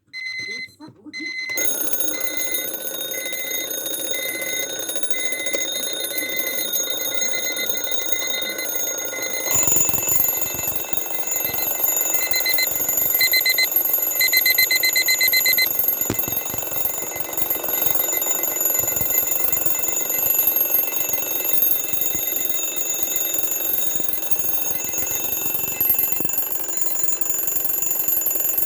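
Alarm clock going off: a repeating high beep, joined about a second and a half in by a continuous ringing that gets louder about ten seconds in and runs on without stopping.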